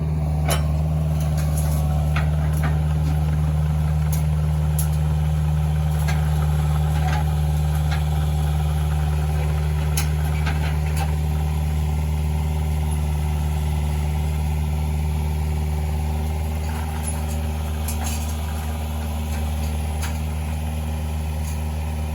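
A vehicle engine running steadily at an even speed, with a few light clicks and knocks over it.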